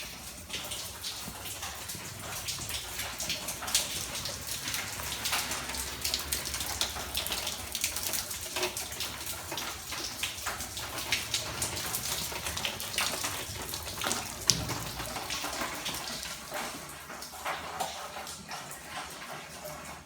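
Heavy rainwater pouring and dripping down through the half-finished flat roof, with a steady splashing hiss and many sharp drop splashes; the roof has been torn off and left open to the storm.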